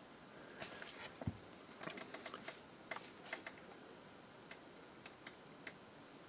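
Faint handling noises: small clicks, taps and brief rustles from fingers turning a miniature on its round painting holder, with one low thump about a second in. The clicks fade to a few scattered ticks in the second half.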